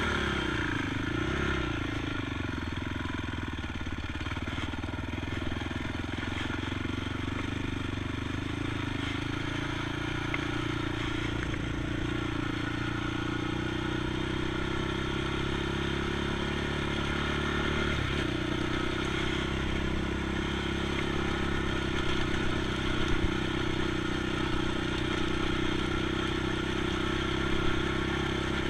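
ATV engine running steadily as the quad is ridden along a trail, its note dipping and recovering briefly near the start. A single knock comes about two-thirds of the way through, and the note sits a little higher after it.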